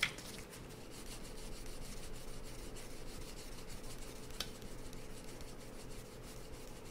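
Emery nail file rubbed steadily back and forth on a small metal Glock trigger part, a faint scratchy rubbing as the stamped steel surface is polished smooth on one of the file's finer grits.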